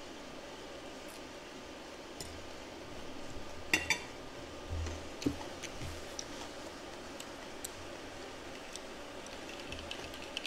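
A metal fork set down on a ceramic plate, a sharp clink with a brief ring about four seconds in, followed by a smaller knock and a few soft thuds of tableware being handled.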